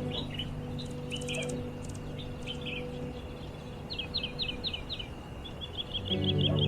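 Songbirds chirping: scattered short chirps, a run of quick falling notes about four seconds in, and a fast trill near the end. Under them runs a soft, steady background music pad that swells louder near the end.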